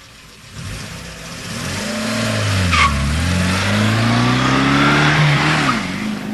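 Race-car sound effect from an electronic keyboard: engine revving that swoops up and down in pitch, growing louder over a rising rush of noise, with a squeal-like high glide in the middle.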